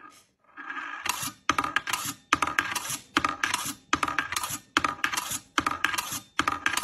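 Steel ball of a desk toy rattling as it runs around its metal ring. It starts about a second in and goes on as a string of quick clattering bursts with short breaks between them.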